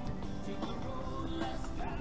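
Background music.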